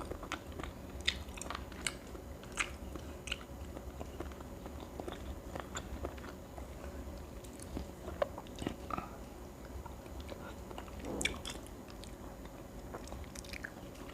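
A person chewing and biting close to the microphone, with many small, irregular mouth clicks and light crunches, while eating isaw, grilled chicken-intestine street food.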